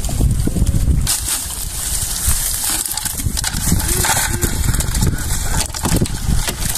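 Mesh crab trap net rustling and crackling as it is handled and shaken with crabs inside, full of small clicks and scrapes. A low wind rumble on the microphone covers the first second and returns near the end.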